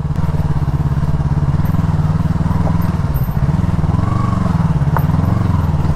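Sport motorcycle's engine running steadily at low speed as the bike rolls over a rough, rocky dirt track, heard from the rider's seat.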